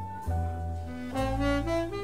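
Live jazz ballad: tenor saxophone playing a slow melody with piano and double bass accompaniment, the line stepping upward in the second half over sustained low bass notes.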